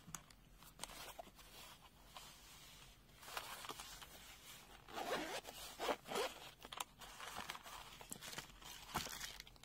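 Zipper of a fabric-covered hard carrying case being unzipped around the case in several short pulls, a faint rasping.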